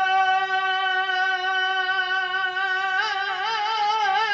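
A man's voice singing a naat, holding one long high note steady, then breaking into quick wavering turns around the same pitch about three seconds in.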